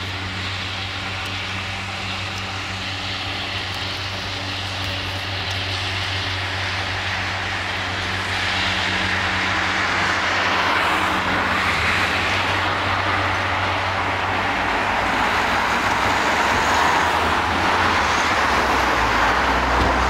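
Car driving along: a steady low engine drone under road and wind noise, which grows louder about halfway through as the car picks up speed.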